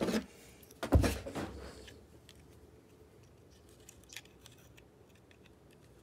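Hands handling steel digital calipers and a small plastic rocker switch: a loud knock about a second in, then a few faint clicks as the caliper jaws are closed on the switch.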